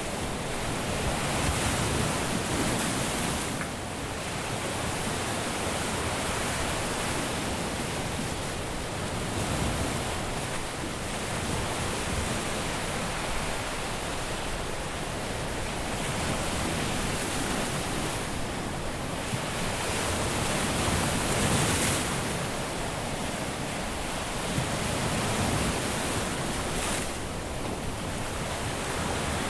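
Caribbean surf breaking and washing up a beach, a steady rush of waves that swells and eases every few seconds.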